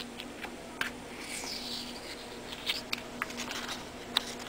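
Soft scattered clicks and rustles of leathery reticulated python eggshells being slit and peeled open by hand. A steady low hum runs underneath, and a faint high falling squeak comes around the middle.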